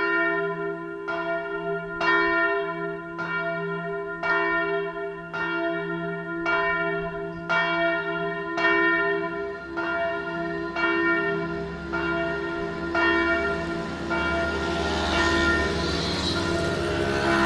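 Bell no. 1, a single large swinging church bell, struck about once a second by its clapper, its deep hum sounding under each stroke. The strokes grow weaker and stop about two-thirds of the way through as the bell rings down, its hum lingering. A rushing noise rises near the end.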